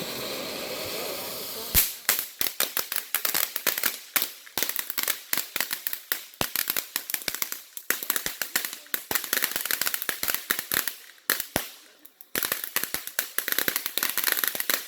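A firework hissing steadily, then, about two seconds in, breaking into a rapid string of sharp crackling pops that runs on with a short lull late on.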